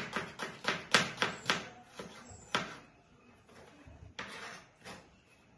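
Kitchen knife chopping onion on a wooden cutting board: quick, even knocks about four a second that stop about a second and a half in, one more single knock, then a few quieter scraping and rustling sounds.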